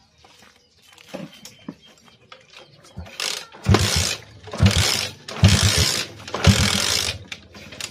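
Small motorcycle being kick-started: about five hard kicks in quick succession starting about three seconds in, each a clatter of the kick-start lever with the engine turning over in a few thumps but not yet running.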